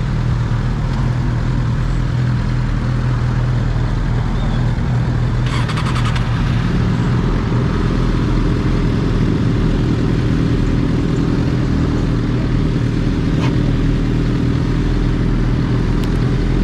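Superbike engine running hard at highway speed with steady wind rush over the helmet camera. A brief rattle comes about five and a half seconds in, after which the engine note rises.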